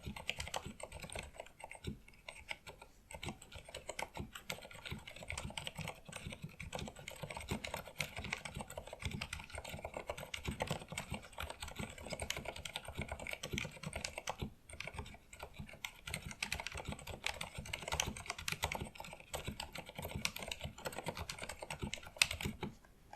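Continuous fast typing on a Filco Majestouch 2 mechanical keyboard with Cherry MX Pink silent linear switches. It makes dense, soft key clacks with a brief pause about halfway and one sharper stroke near the end.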